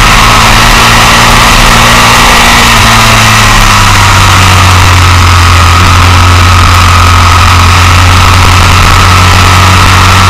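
Motorcycle engine running hard at track speed, heard from an onboard camera, with a broad rush of wind and road noise over it. The engine note holds fairly steady, shifting slightly about three to four seconds in.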